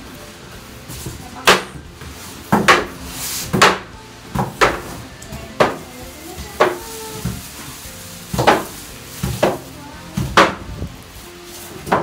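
A dozen or so sharp knocks and bumps at uneven spacing, roughly one a second, as the cardboard box and the plastic-wrapped washing machine are handled during unpacking, over background music.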